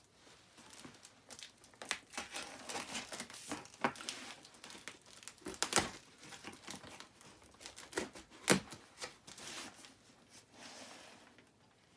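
Cardboard box being opened by hand: packing tape cut and torn off, card and packaging crinkling and scraping in irregular bursts, with two louder tearing sounds about six and eight and a half seconds in.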